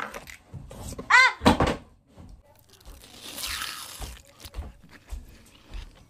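Close knocks and bumps with a short high squeak about a second in, a rustling hiss around three seconds, then footsteps approaching at about two steps a second.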